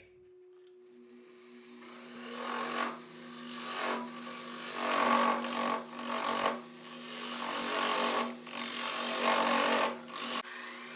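Wood lathe running with a steady hum while a gouge cuts into a spinning maple end-grain blank in about five passes, each one to two seconds long, with short breaks between them. This is the rough shaping of the blank between centers.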